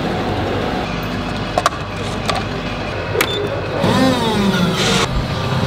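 A few light clicks of a paper cup and a button on an automatic coffee machine, then about four seconds in the machine's motor whirs into action with a sweeping pitch and settles into a steady low hum as it starts making the drink.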